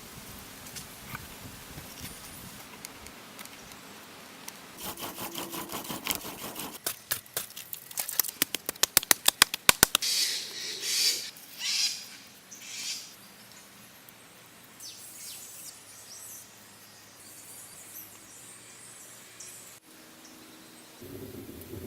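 Hard taps in quick series, growing louder and faster partway through, then a few short scraping strokes: stone being struck and worked by hand in making a stone tool.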